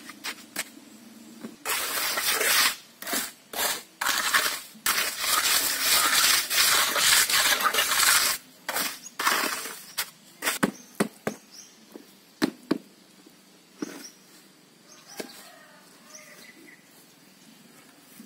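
Wooden tamping stick knocking into damp sand-cement mix packed in a wooden block mould, then several seconds of rough scraping as the top of the mix is struck off level. A few light knocks follow near the end.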